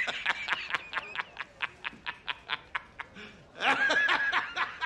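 A high-pitched, rapid snickering laugh in quick short pulses, about five a second, breaking into a squeaky drawn-out wheeze near the end: a cartoon-style meme laugh sound effect.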